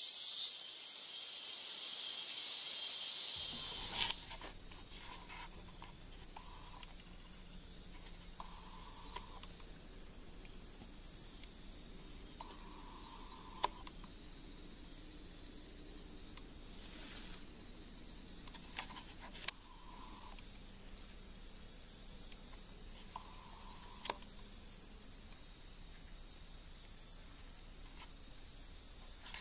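A steady, high-pitched chorus of night insects trilling, with short mid-pitched calls now and then and a few sharp clicks. It is preceded by a hiss over the first three seconds or so.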